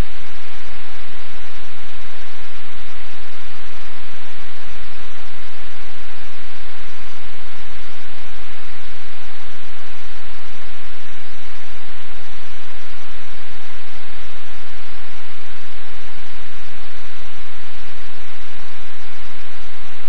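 Loud, steady hiss like static, unchanging throughout, with nothing else heard in it.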